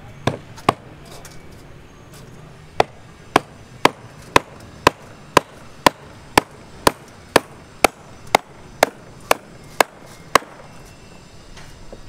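Hammer striking steel rebar: two knocks, then a steady run of about sixteen sharp strikes, roughly two a second, that stops near the end.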